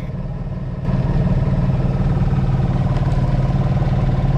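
Fishing boat's engine running steadily with an even low drone, growing louder about a second in.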